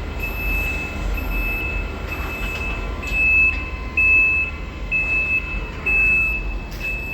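Electronic warning beeper sounding a high, steady tone about once a second, over a low, steady mechanical rumble.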